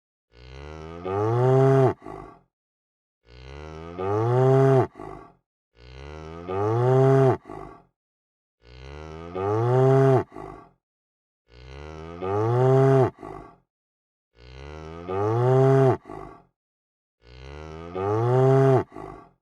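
A cow mooing: the same moo repeated seven times, about every three seconds, with silence between. Each moo starts softer, swells loud and drops in pitch at the end, and ends with a short grunt.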